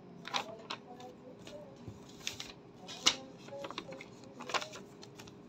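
A sheet of paper being handled and folded: a string of sharp crinkles and rustles, the loudest about three seconds in.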